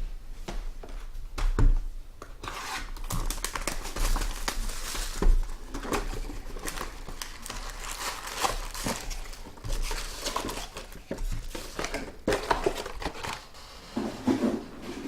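Plastic wrapping crinkling and tearing as trading-card packaging is ripped open, with a few handling thumps.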